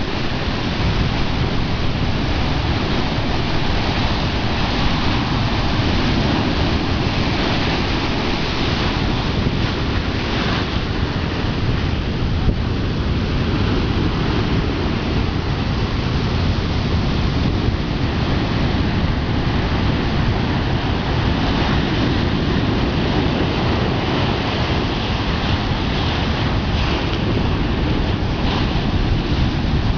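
Ocean surf breaking steadily, with wind buffeting the microphone.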